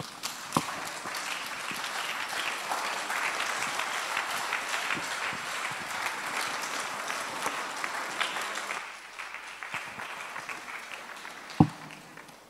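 A congregation applauding: dense clapping from many hands that dies away after about nine seconds. A single sharp knock sounds near the end.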